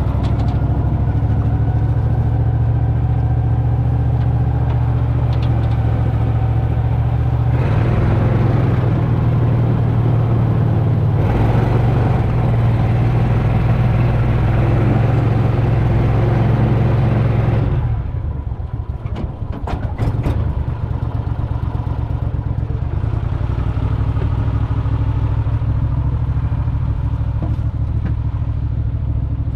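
Boat motor running steadily at speed. About 18 s in it is throttled back, then runs on at a lower, steady speed.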